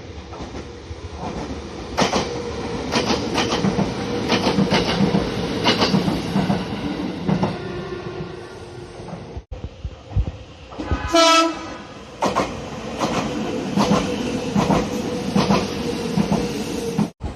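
Nagano Electric Railway express train running, with rhythmic clacking over the rail joints, broken by abrupt cuts between recordings. About eleven seconds in comes one short, loud horn blast on a single pitch.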